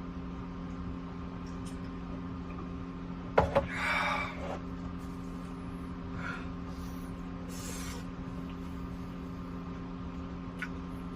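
A steady mechanical hum with several fixed tones. About three and a half seconds in there is a sharp knock followed by a second of clatter, and there are a few faint small noises later.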